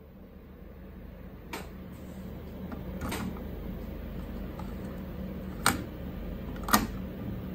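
Cassette door and cassette of a Luxman K-100 cassette deck being handled: four sharp plastic clicks and clacks as a tape is set in and the door is pushed closed, the loudest two near the end, over a low steady hum.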